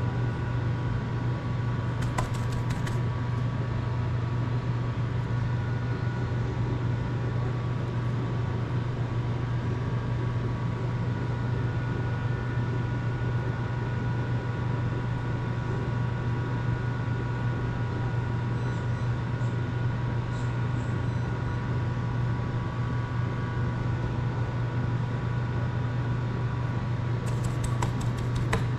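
Steady machine hum with a strong low drone and a few faint steady whines above it; light clicks about two seconds in and again near the end.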